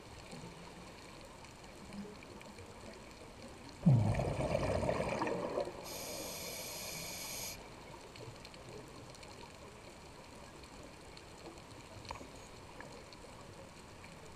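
Scuba diver's exhalation through the regulator: a sudden burst of rumbling bubbles about four seconds in, lasting about two seconds, over a faint underwater hiss. Soon after comes a brief high-pitched buzz.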